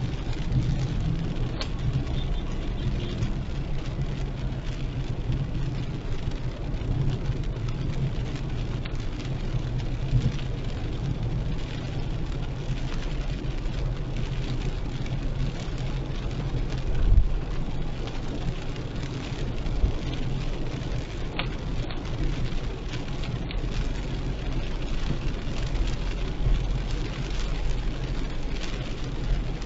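Car driving through heavy rain: rain hitting the car over the steady low hum of engine and tyres on the wet road, with one louder low thump past the middle.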